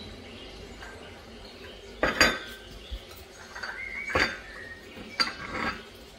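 Dishes and cutlery being handled and set down: a handful of short clinks and knocks, the loudest about two seconds in, with faint bird chirps in the background.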